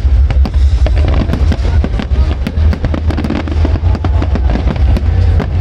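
Fireworks display firing a dense barrage: many sharp bangs and crackles, several a second and overlapping, over a constant deep rumble.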